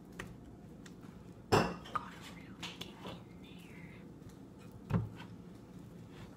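A wire whisk clinking and knocking against a mixing bowl: a handful of separate knocks, the loudest about one and a half seconds in and another near five seconds.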